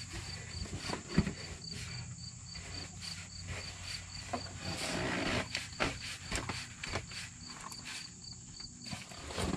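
A cricket chirps steadily, about four chirps a second. Under it there is faint rubbing and scraping, with one sharp click about a second in, as a polyurethane SumoSprings spring is twisted by hand onto its stud.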